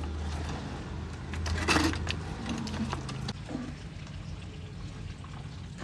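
Hand-milking a cow: milk squirting in streams into a steel pail full of froth, with small metallic clinks and one brief louder splashing rustle about two seconds in, over a low steady hum.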